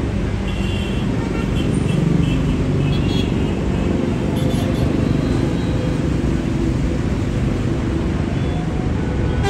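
Steady low engine rumble that grows a little louder about two seconds in, with faint higher chirps or voices over it.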